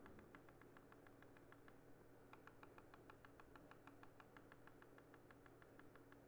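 Faint, rapid, even clicking of a computer control, about six clicks a second, as slides are stepped back on the computer.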